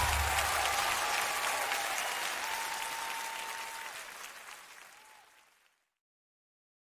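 Audience applause at the end of a live song, fading out steadily over about five seconds into silence.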